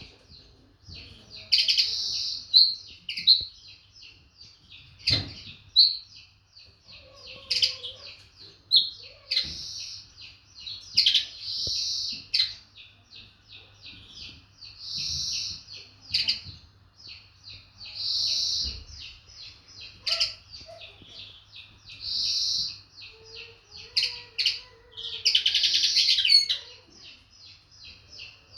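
Eurasian linnet singing a continuous twittering song, with louder buzzy notes repeated every few seconds. A single low knock about five seconds in.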